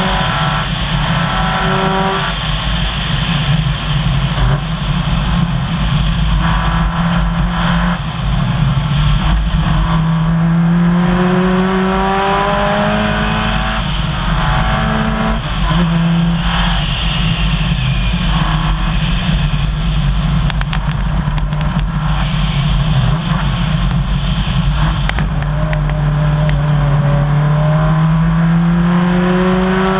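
Subaru rally car at full pace, heard from inside the cabin: the engine climbs in pitch through the gears and drops at each shift, with a long pull near the end. Under it runs a steady rush of tyres on gravel, and there is a brief patter of stones ticking against the car past the middle.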